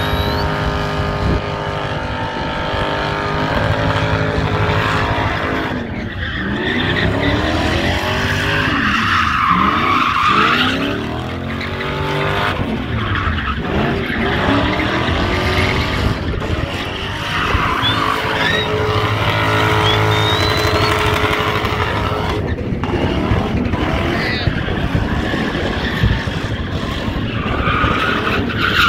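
A car's engine held at high revs while it spins its rear tyres in donuts and burnouts, with the tyres squealing. The engine note swings up and down as the car circles. The tyre squeal comes loudest about ten seconds in, again around twenty seconds, and near the end.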